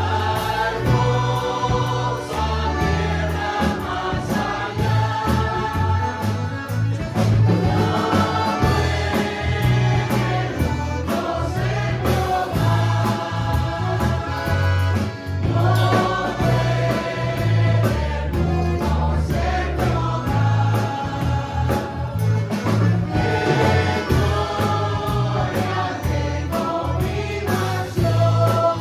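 Congregational gospel hymn sung in Spanish by a group of women's voices, backed by a small band of mandolins, acoustic guitar, bass guitar, drum kit and accordion, with a steady beat.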